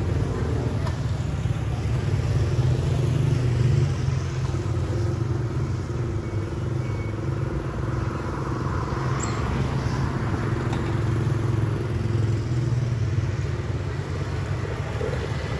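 An engine idling steadily close by, a low even hum, while motorbikes pass in the street; one passes about eight to ten seconds in.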